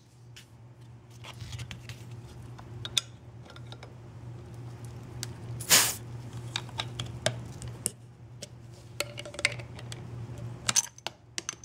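Can-opener blade of a Sanrenmu 7056 folding knife prying and levering at the steel crown cap of a glass soda bottle: scattered metallic clicks and scrapes, with one louder, longer rasp about six seconds in.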